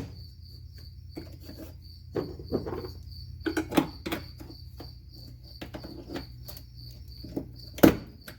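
Crickets chirping in a steady, even pulse throughout, over scattered clicks and knocks from hands working on a car's wiring under the dash, the loudest knock near the end.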